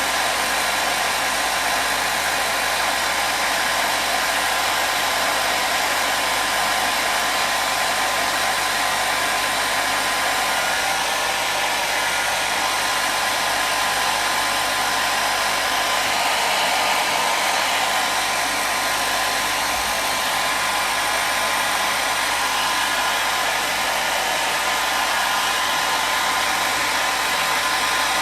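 Handheld hair dryer running steadily: an even airflow rush with a faint steady motor whine, used as continuous white noise.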